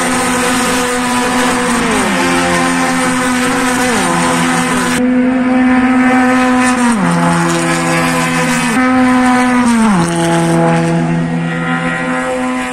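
Racing cars of a one-make series passing along the circuit one after another, their engines held at high revs. Each engine's pitch drops sharply as it goes by, about four times in all, and the sound fades near the end.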